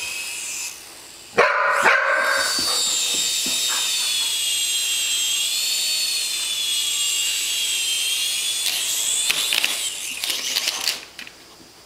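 A dog barks once, loudly, about a second in. Then a toy RC helicopter's small electric motor and rotors whine steadily in flight, the pitch wavering slightly. Near the end there are a few clicks as it comes down, and the whine cuts off.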